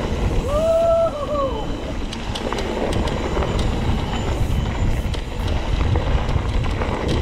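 Mountain bike riding over a rocky trail: a steady low rumble of wind on the microphone and tyres on dirt, with scattered clicks and rattles from the tyres and the bike on rocks. About half a second in comes a short tone that rises and then falls.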